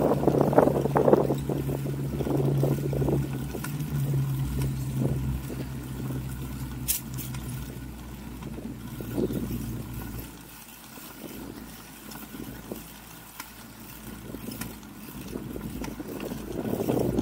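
Low rumble of a child's bicycle rolling over concrete pavement, with wind buffeting the microphone in gusts. There is a sharp click about seven seconds in, and the rumble drops away for several seconds after about ten seconds before picking up again near the end.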